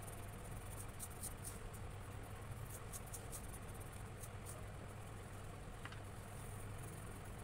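Colored pencil scratching on paper in short, irregular strokes as a tree is shaded green, over a steady low hum.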